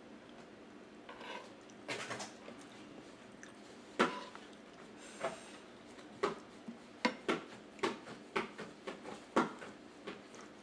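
Metal spoon and fork clinking and scraping against a plate while food is cut and scooped: a string of short sharp taps, the loudest about four seconds in, then a quicker run of them in the second half.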